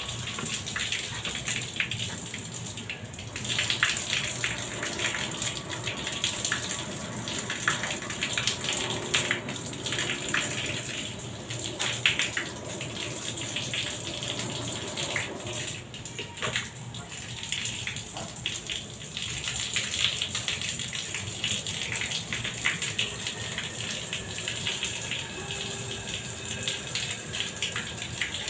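Liquid oxygen being unloaded from a tanker trailer through the transfer hose and valves: a steady hissing, gushing flow with irregular crackling.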